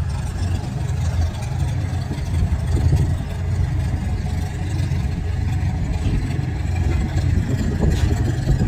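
Antique farm tractor engine working under heavy load as it pulls a weight sled down the track, a steady low rumble.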